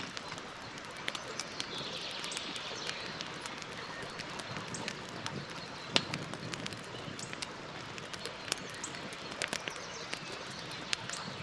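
Campfire burning, with steady hiss and frequent irregular crackles and pops of burning wood; the sharpest pop comes about six seconds in.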